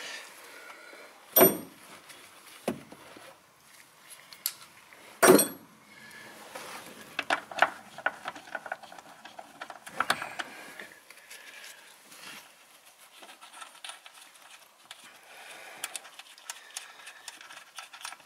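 Irregular metal clicks and clinks of a ratchet and socket loosening the far-side nut that holds the brake master cylinder to the brake booster. There are two sharp knocks about one and a half and five seconds in, and a run of faint quick ticks near the end.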